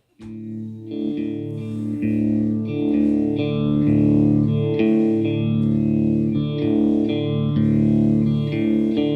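Guitar playing the instrumental intro of a slow live song, with sustained chords struck about once a second. It comes in suddenly just after the start.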